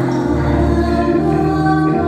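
Church organ accompanying the singing of a hymn, with sustained chords under the sung melody.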